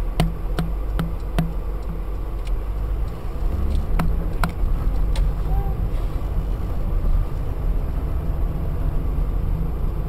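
Car interior road and engine noise picked up by a dashcam: a steady low rumble. For the first few seconds there is a regular ticking, about two and a half ticks a second, and a few more ticks follow around four to five seconds in.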